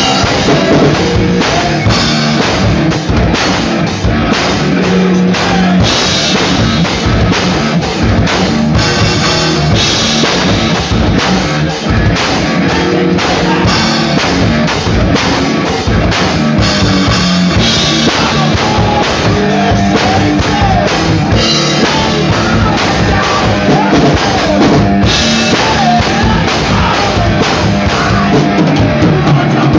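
Live rock band playing loud: electric guitar over a PDP drum kit keeping a steady beat.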